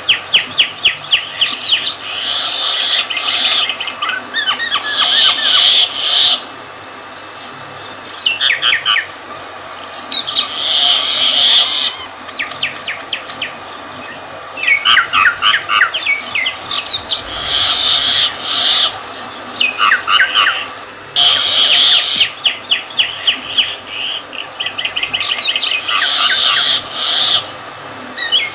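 Myna calling in repeated bouts of rapid clicks, harsh buzzy notes and short whistles, with pauses of a second or two between bouts.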